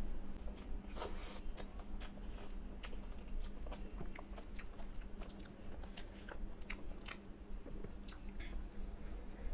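Close-up chewing of a mouthful of rice and mashed okra bharta, with many small wet mouth clicks and smacks.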